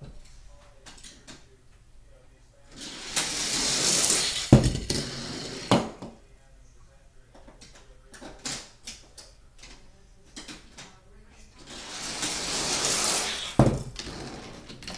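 Die-cast toy cars rolling down a plastic track, the rolling noise growing louder, then a sharp clack as they land on the floor. This happens twice: about three to four seconds in, and again near the end.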